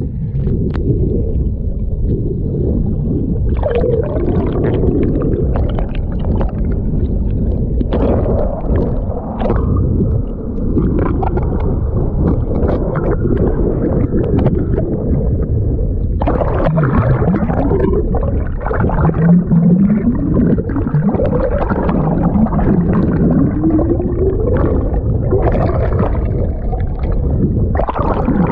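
Water rushing and bubbling past an underwater microphone in a boat's wake: a dense, continuous churning with scattered crackles. In the second half, low humming tones slide up and down in pitch beneath the rush.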